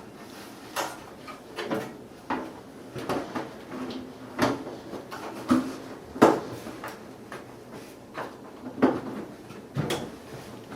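Irregular knocks, clunks and scrapes of a dryer's metal parts being handled, about a dozen hits, a few of them ringing briefly.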